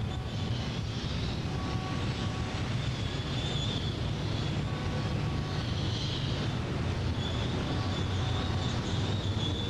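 Steady low rumble of city traffic and engines, with faint thin high tones now and then over it.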